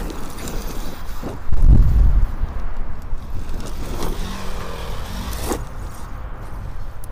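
Arrma Kraton 8S RC monster truck with its brushless motor running over rough dirt, with a few short knocks and a loud low rumble about a second and a half in.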